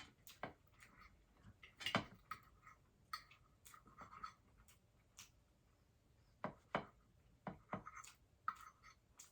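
Faint eating sounds: soft chewing and wet mouth noises, with a few sharp little clicks scattered through.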